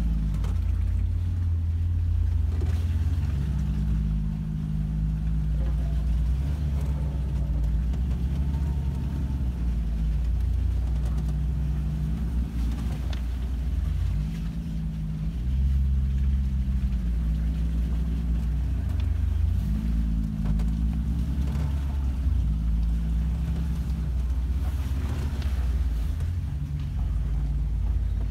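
Ford 5.0 V8 in a 1986 Bronco II, heard from inside the cab, running at low speed on a trail, its revs rising and falling every couple of seconds as it crawls along.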